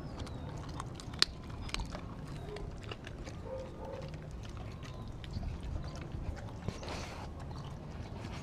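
A dog chewing and biting food close to the microphone: scattered crunching clicks of teeth, with one sharp click about a second in.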